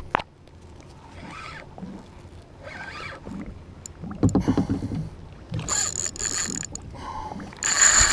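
Kayak paddle strokes: water swishing and splashing about every one and a half seconds, the last two strokes much louder and splashier.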